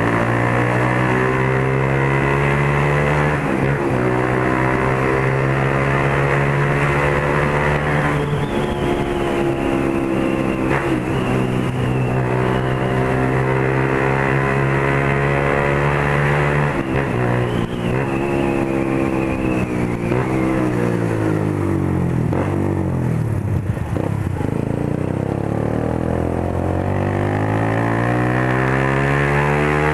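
Motorcycle engine with a straight-pipe exhaust, no muffler, running loud while riding. Its pitch holds steady, climbs about eight seconds in, drops and rises again through gear changes later on, and climbs once more near the end.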